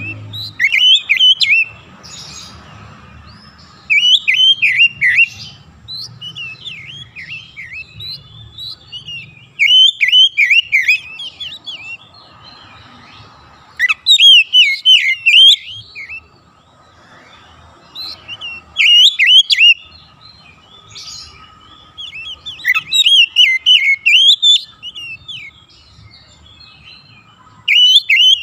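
Oriental magpie-robin (kacer) singing loud, varied whistled phrases in bursts of one to two seconds, about nine of them, with short pauses between. It is the energetic 'gacor' song used to lure silent kacer into singing.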